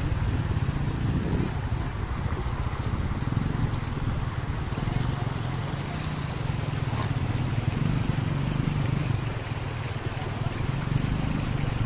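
Small motorcycle engine running steadily at low revs close by, over the rushing of a shallow rocky stream.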